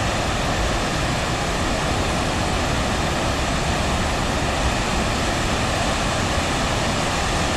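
Waterfall and river in spate: a steady, even rush of falling water with no change.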